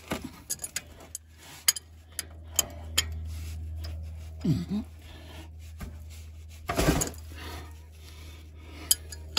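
An adjustable wrench clicking and clinking against a drain plug on a tractor transmission case as the plug is worked loose, with a louder knock about seven seconds in.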